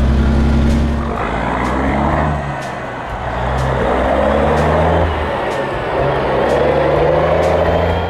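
Semi truck's big diesel engine pulling under load, its note holding and then changing in steps several times as it goes through the gears, with a rushing exhaust sound over it.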